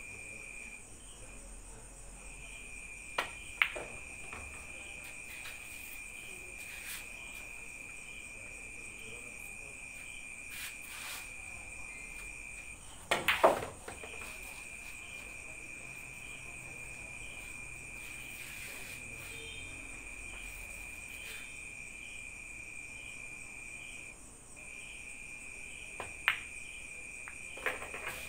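Crickets chirping in a steady high trill with brief breaks. Over it come the sharp clicks of pool balls: a cue tip on the cue ball and ball-on-ball contacts, once a few seconds in and again near the end. About halfway through there is a louder quick clatter of knocks.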